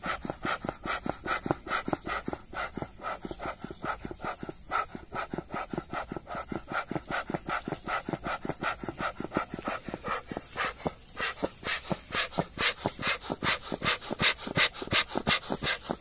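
Bellows of a tin bee smoker squeezed rapidly, each stroke pushing a puff of air through the firebox to get the freshly lit coconut husk smouldering. About three puffs a second, getting louder toward the end.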